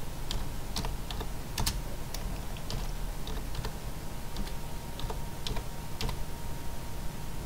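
Typing on a computer keyboard: irregular key clicks as a name is typed into a search box.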